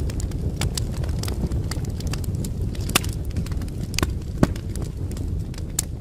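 Wood fire in a fireplace crackling, with irregular sharp pops, a few louder than the rest, over a steady low rumble.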